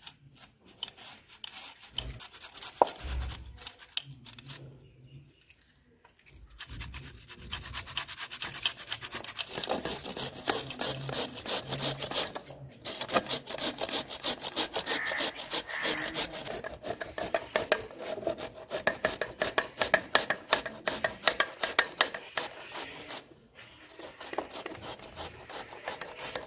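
Carrots being grated by hand on a metal grater: rapid, repeated rasping strokes that run steadily after a short pause a few seconds in.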